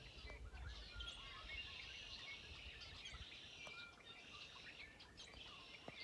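Faint chorus of many small songbirds chirping and trilling together, with a low rumble in the first second.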